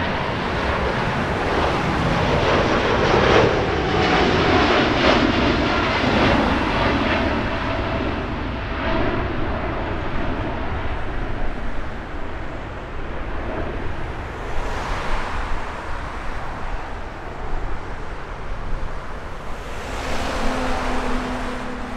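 Wide-body jet airliner's engines at take-off power as it departs past, a rushing roar loudest a few seconds in and then slowly fading away.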